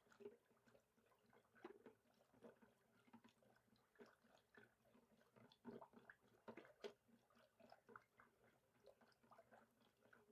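Faint, irregular sloshing and squelching of thick spiced buttermilk being churned with a hand-twirled ravi (wooden churner) in a plastic bowl, with soft clicks scattered through it.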